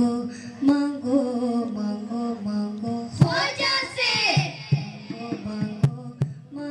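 A group of boys singing a qawwali together through a stage PA over a steady low drone. About halfway through the voices rise into a loud, high, sweeping passage and then fall back, and a few sharp claps come near the end.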